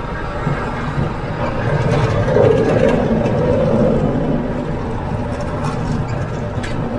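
Kubota MX5400 utility tractor's four-cylinder diesel engine running steadily while the tractor works a rear snow blade, swelling a little louder for a couple of seconds around the middle.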